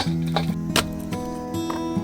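Background music of a strummed acoustic guitar, with a few sharp clicks over it, the loudest right at the start.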